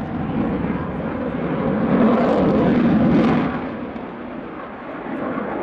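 Saab JAS 39 Gripen fighter's single Volvo RM12 jet engine during a display pass overhead, a loud rushing noise that swells to a peak about two to three seconds in and then fades.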